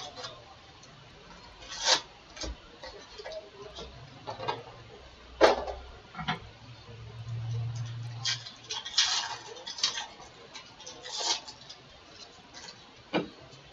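Foil-wrapped Bowman baseball card packs being handled: scattered crinkles and light taps as packs are lifted out of the box and set down in stacks, with a sharper snap about five and a half seconds in.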